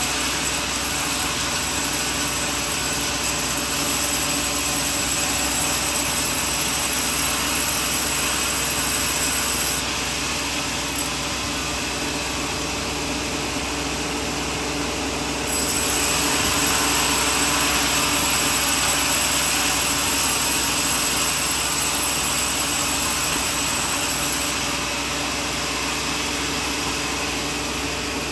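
Sawmill running and sawing coconut wood: a steady saw noise. It drops in level about ten seconds in, rises again around the middle, and drops once more near the end.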